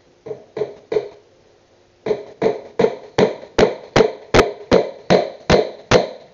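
Steel claw hammer striking a nail into a wooden board: three taps, a short pause, then a steady run of about a dozen blows, between two and three a second.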